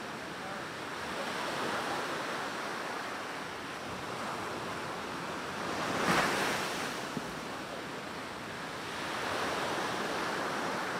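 Ocean surf: waves breaking and washing up a sandy beach, swelling and ebbing in turn, with the loudest wave breaking about six seconds in.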